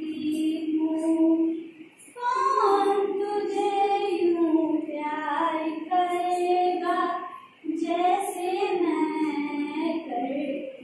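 A young woman singing solo and unaccompanied in a classroom, in long held notes with a wavering pitch, pausing for breath about two seconds in and again just past the middle.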